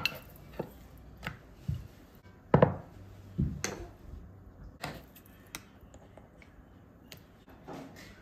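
Scattered light taps and knocks of ceramic ramekins and kitchen utensils handled on a bamboo cutting board, the loudest knock about two and a half seconds in.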